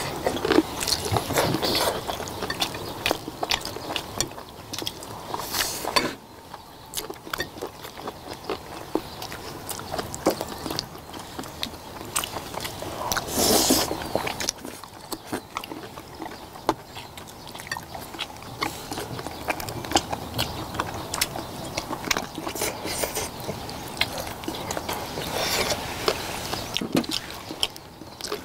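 Close-miked eating: several people chewing braised chicken drumsticks, with many small clicks of chopsticks against dishes and bones and a few louder bursts of eating noise about a second in, about halfway and near the end.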